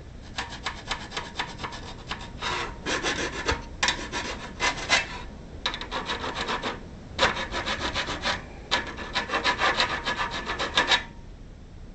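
Hand file scraping back and forth over freshly cut notches in a metal awning support arm, cleaning them up. The strokes come quickly in several runs with short pauses between them, and stop about eleven seconds in.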